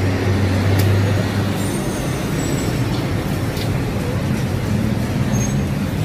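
Busy street traffic: a vehicle engine running close by, its low hum strongest for the first two seconds and then fading, over the steady noise of the road.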